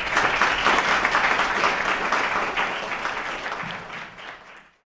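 Audience applauding, a dense patter of many hands clapping, which fades away and stops about three-quarters of a second before the end.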